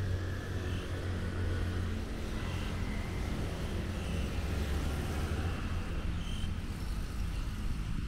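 City street traffic: a steady low rumble of passing cars and scooters.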